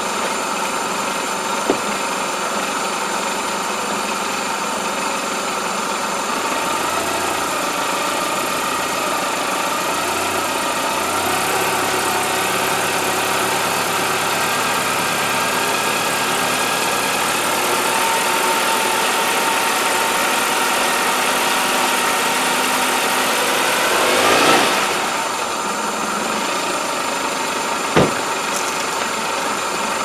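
1997 Toyota Camry four-cylinder engine running steadily with its idle air control valve unplugged, which makes it run smoother. Its speed rises a little about a third of the way in and holds, surges briefly about five seconds before the end, then settles back to idle; a single sharp click near the end.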